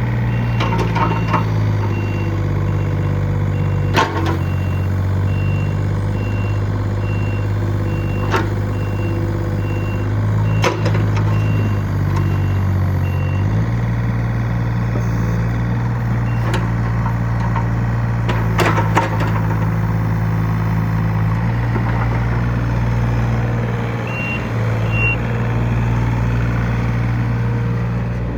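John Deere 35D mini excavator's diesel engine running steadily, its pitch stepping up and down as the hydraulics are worked, with sharp metallic clanks now and then. A high, rapid beeping alarm sounds through the first half and again briefly near the end.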